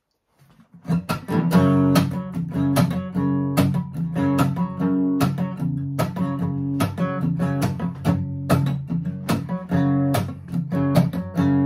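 Acoustic guitar strummed in a steady chord rhythm, starting about a second in: the intro of a song.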